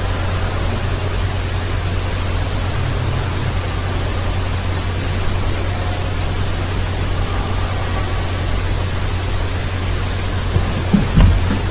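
Steady hiss with a low steady hum underneath, the noise floor of the recording microphone. A couple of short low thumps near the end.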